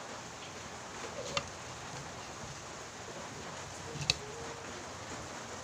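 Steady hiss of rain falling, with light clicks about one and four seconds in.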